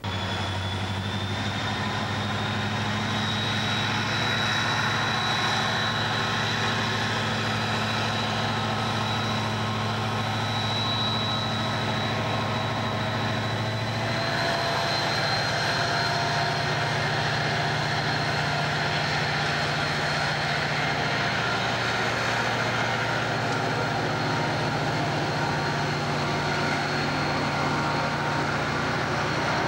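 CSX diesel freight locomotives passing close by with their engines running, then freight cars rolling past. The deep engine note steps to a new pitch about halfway through, over a steady rumble and a thin high whine.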